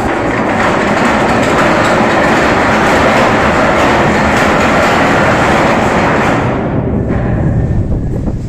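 A large ship's anchor chain running out by gravity over the windlass, with the brake released. It is loud and steady, starts suddenly and dies down about six and a half seconds in.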